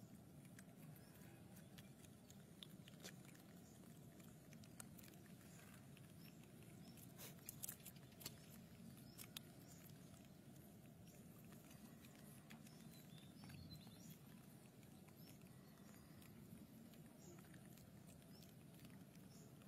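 Near silence: a faint steady hum, with a few soft clicks and taps clustered about seven to nine seconds in.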